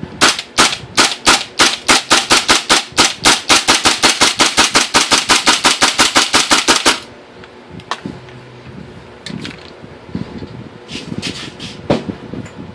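KWA LM4 gas-blowback airsoft rifle running on propane and firing: a few single shots, then a fast even string of about nine shots a second with the bolt cycling steadily, stopping abruptly about seven seconds in. Lighter clicks and handling knocks follow, the loudest sharp one near the end.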